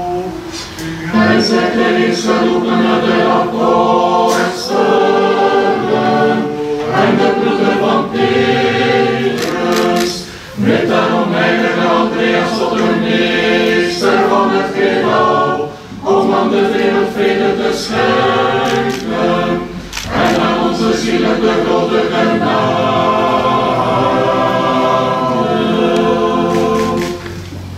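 Polyphonic church choir singing an Orthodox hymn a cappella, in several phrases with short breaks between them.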